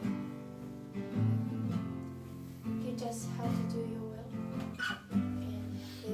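Acoustic guitar strumming slow, sustained chords.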